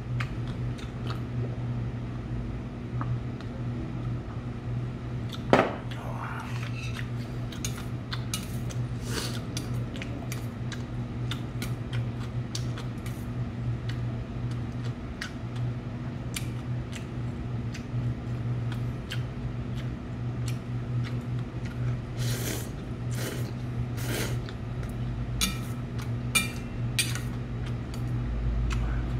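Chopsticks and a spoon clicking against a stainless-steel bowl as noodles are eaten, with one sharper knock about five seconds in and a few short slurps near the end, over a steady low hum.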